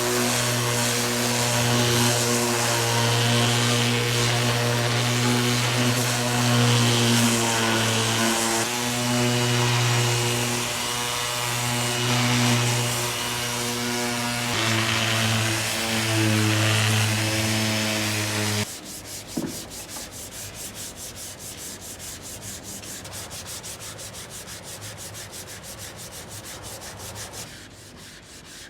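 Power sander running on car bodywork, a steady motor hum under a gritty rasping hiss. About two-thirds of the way through it cuts off abruptly, and a quieter, rapid, evenly repeating scraping of sanding follows.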